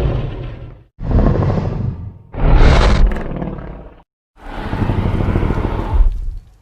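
Giant-monster (kaiju) roar sound effects: a deep roar dies away about a second in, followed by three more separate roars with short silences between them, the second with a shrill screech at its start.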